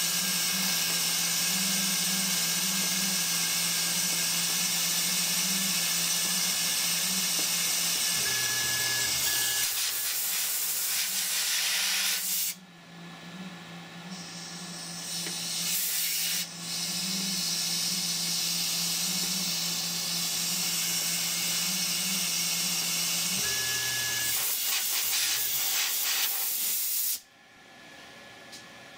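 Compressed-air mist coolant nozzle hissing at the cutter while the CNC mill spindle hums, taper-reaming cross-pin holes through an AR-15 gas block and barrel. The hiss runs about twelve seconds, stops for a few seconds, then runs again for about ten seconds and cuts off suddenly near the end, one pass per hole.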